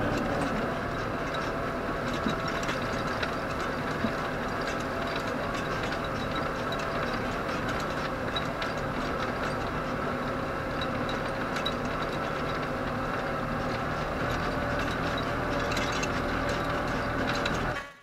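Tractor engine running steadily under load while pulling a spring-tine harrow through the soil, with a constant clatter from the harrow's tines and frame.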